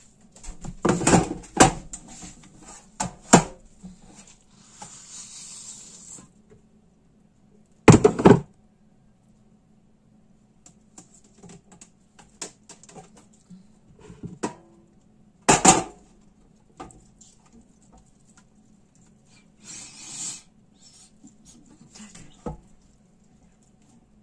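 Plastic cheese moulds and a steel tray clattering and knocking as a brynza cheese is turned over in its moulds. The loudest knocks come about a second in, around eight seconds and around fifteen seconds, over a faint steady hum.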